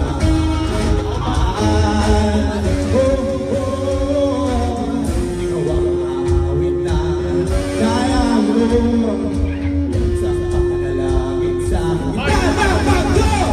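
Live rock band playing: electric guitars over bass, with a singing voice.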